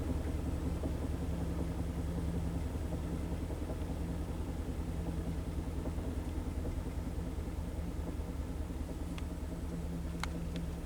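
Kenmore Series 500 high-efficiency front-load washing machine in its spin cycle, the drum spinning with a steady low hum and rumble. A few faint clicks come near the end.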